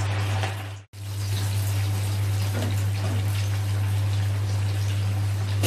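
Marinated pork pieces deep-frying in hot oil in a wok: a steady sizzle with fine crackles, over a steady low hum. The sound drops out completely for a moment just under a second in.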